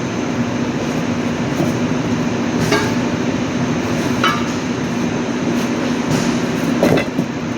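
A steady mechanical drone with a constant low hum, with three short metallic clinks of tools or brake parts being handled, about three, four and seven seconds in.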